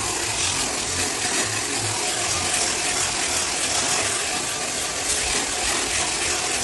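Floor sanding machine running steadily on wooden floorboards, a continuous abrasive hiss over an uneven low rumble.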